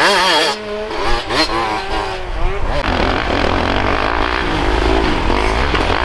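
Enduro dirt bikes racing past on a snowy track: one engine's pitch rises and falls with the throttle and gear changes, then a second bike passes close with a denser, noisier exhaust sound.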